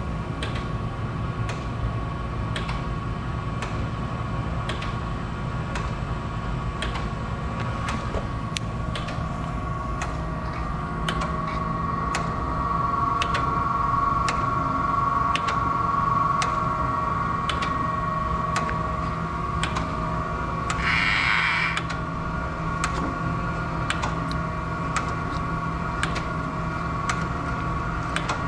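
Acer automatic hydraulic surface grinder under power: its motors and hydraulic unit give a steady hum with a high whine, and a light tick repeats a little faster than once a second. The hum swells for a few seconds near the middle, and there is a short hiss about three-quarters of the way through.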